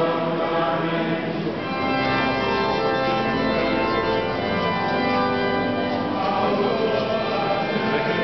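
Church organ playing slow, sustained chords, with a deep bass note sounding for a couple of seconds from about two seconds in.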